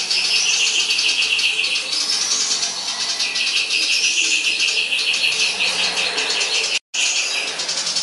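Caged sirtu (sirpu) songbird singing a loud, unbroken stream of rapid, high chattering notes, a song filled with mimicry of house sparrows squabbling. The sound cuts out completely for an instant a little before the end.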